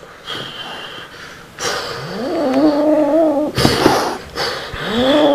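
A cat yowling at a plush toy: a long, low call that rises and then holds, a burst of hissing, and a second rising call near the end.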